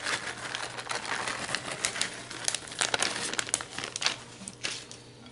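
Plastic bag of shredded mozzarella crinkling in irregular crackles as it is tipped and shaken out, stopping near the end.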